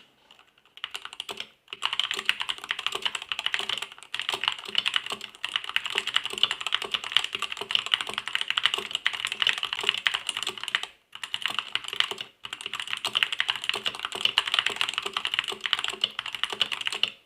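Continuous fast typing on a Skyloong SK61 mechanical keyboard with red switches: a dense run of keystroke clicks, broken by a few brief pauses.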